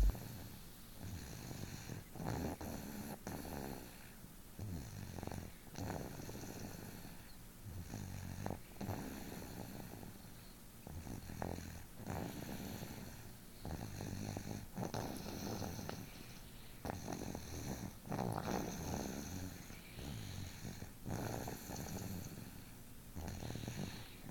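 Snoring: a run of repeated snores, one every second or two at an uneven pace.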